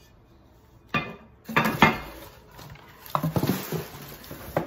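Packaging being handled in a cardboard box: a sharp knock about a second in, then rustling, crackling plastic wrap with clicks and clunks as wrapped items are moved around.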